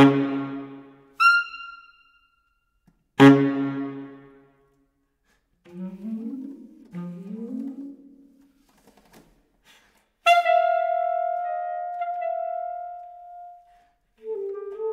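Contemporary chamber music for saxophones and clarinets: a few sharp, accented low notes that ring away, then two slow rising glides, then a long high note that fades out, with a new wavering held note entering near the end.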